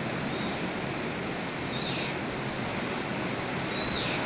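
Heavy rain pouring down in a strong windstorm, a steady dense hiss. A few short high chirps sound over it, about two seconds apart.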